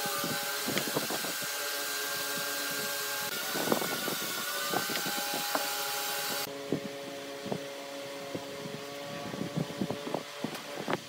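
Wood lathe motor running with a steady hum while a tool scrapes against the spinning wood in short, repeated strokes. A loud steady hiss runs alongside for the first six seconds or so and then cuts off suddenly.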